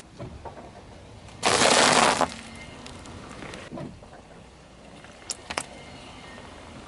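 A car tyre rolling onto a foil-wrapped chocolate figure and crushing it on asphalt, a loud crunch lasting about a second. A few seconds later come two short sharp cracks.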